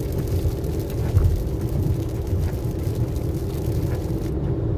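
Inside a car cruising on a rain-wet highway: a steady low rumble of tyres and engine with a constant hum.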